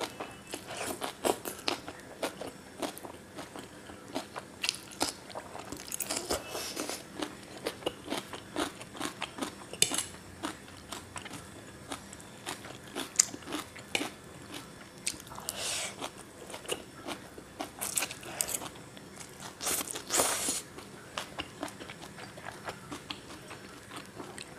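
Mouth sounds of eating chow mein noodles: steady wet chewing with many quick smacks and clicks, and several short slurps scattered through.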